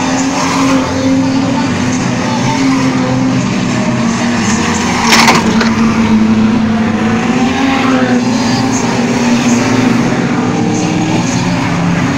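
Race car engines running and revving on a track, their pitch rising and falling, with a sharp bang about five seconds in.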